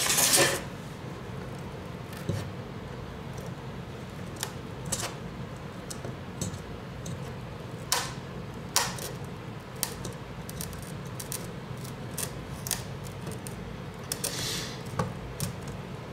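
Scattered light clicks and scrapes of a metal pry tool working at the logic board and connectors inside an opened iPad 4, over a steady low hum. A louder short hiss comes right at the start and a softer one near the end.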